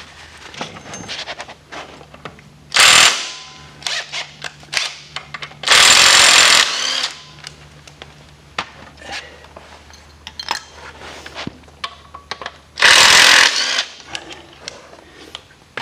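Impact wrench hammering three times on the cam gear bolts of a Nissan VG30 V6, loosening them: a short burst about three seconds in, a longer one near the middle, and another near the end, with clicks of tool handling between.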